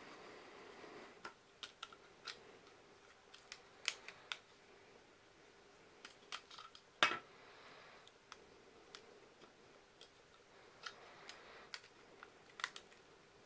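Small plastic parts of a model tractor cab clicking and tapping as they are pressed and fitted together by hand: scattered light clicks, the loudest about seven seconds in.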